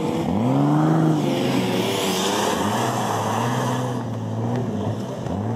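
Modified off-road racing vehicle's engine revving hard under load as it pulls up a sandy slope. The revs climb sharply three times and hold high in between, with a rushing hiss around two seconds in.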